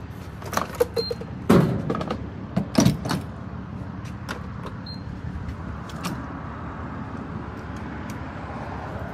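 Fuel nozzle and pump being handled at a gas station pump: several loud clunks in the first three seconds, two short high beeps from the pump about a second and five seconds in, over a steady background hum.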